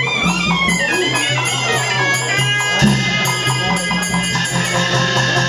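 Burmese traditional music for a marionette show: a wavering, reedy pipe melody over a pulsing low beat, with percussion strikes keeping time.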